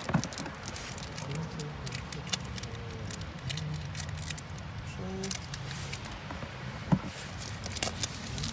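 Foil Pokémon booster-pack wrapper crinkling and trading cards being handled, a run of small sharp rustles and clicks, with a louder snap about seven seconds in.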